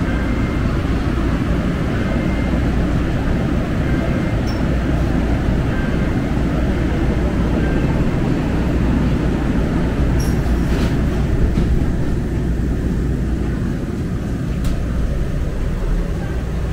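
Steady low rumble inside a Muni Metro light-rail car, with faint short beeps about every two seconds at first and a few light clicks and rattles later.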